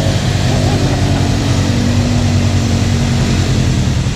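Off-road vehicle engine running steadily under way, its pitch easing slightly lower over the first few seconds.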